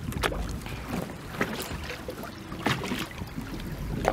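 Choppy lake water lapping and slapping against the side of a boat, with wind rumbling on the microphone and a few irregular sharp slaps.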